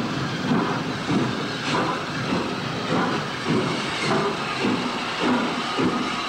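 MÁV class 424 4-8-0 steam locomotive working: a steady beat of exhaust chuffs, somewhat under two a second, with a hiss of steam.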